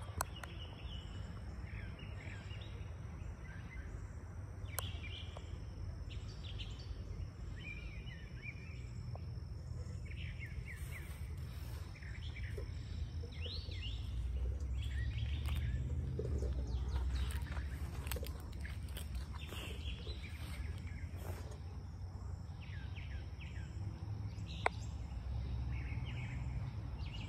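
Wild birds chirping and singing, short calls scattered throughout, over a steady low rumble. Two brief sharp clicks, about five seconds in and near the end.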